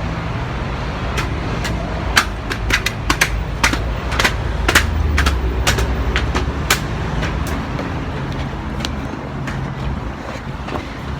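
Ride inside a moving vehicle: a steady low rumble, with a run of sharp clicks and rattles about two to seven seconds in.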